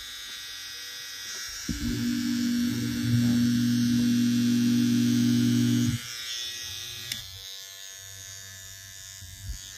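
Cordless hair trimmers running, with a steady high whine throughout. A louder, low motor hum switches on a little under two seconds in and stops about six seconds in. A single click comes near the end.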